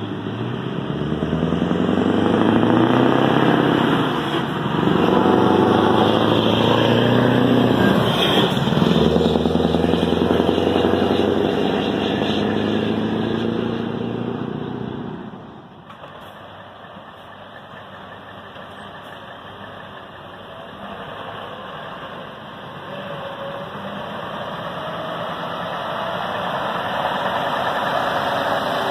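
A heavy lorry's diesel engine pulling away with a loaded trailer. It rises in pitch through several gear changes, with brief drops between them, then fades sharply about halfway as it drives off. A second lorry's engine grows louder near the end as it approaches close by.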